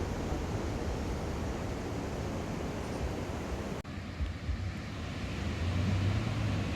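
Vehicle driving: a steady low rumble under a noisy hiss of wind, with a sudden break about four seconds in.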